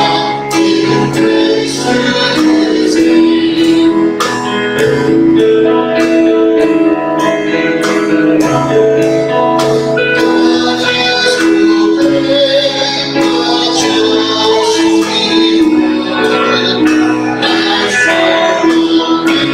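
Church music: a woman singing with instrumental accompaniment and a steady beat.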